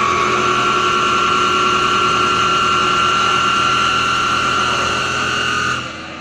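Flat-bed CNC lathe with live tooling running a machining pass: a loud, steady, high-pitched whine with a second tone above it, cutting off suddenly near the end.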